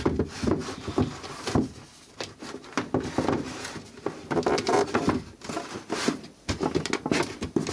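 Irregular clicks, knocks and rustling of power cords, plugs and leads being handled and reconnected on a workbench.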